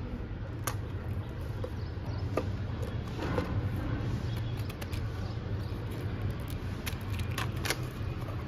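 Handling sounds from a paintbrush and a plastic-wrapped spiral-bound sketchbook being picked up and moved: scattered light clicks, taps and crinkles, most of them about a second in, around two and a half to three and a half seconds in, and near the end. A steady low rumble runs underneath.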